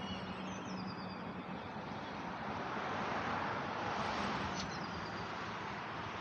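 Street traffic: a vehicle passing on the road, with tyre and engine noise swelling about three to four seconds in, and a few short high chirps from a bird.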